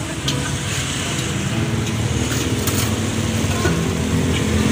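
Street traffic: a motor vehicle's engine running, growing slowly louder.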